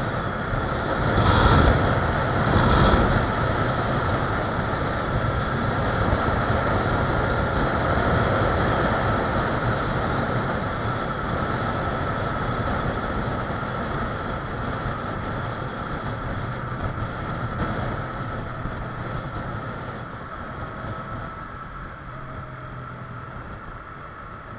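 Wind roaring over an action-camera microphone on a moving Yamaha YZF-R25 motorcycle, mixed with the bike running, with two louder gusts a couple of seconds in. The roar gradually dies down toward the end.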